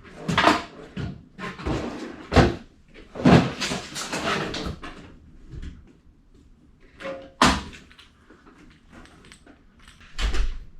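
Tools and toolbox knocking and clattering while a torque wrench is searched for and picked up: a quick run of sharp knocks and scrapes over the first few seconds, then two more single knocks.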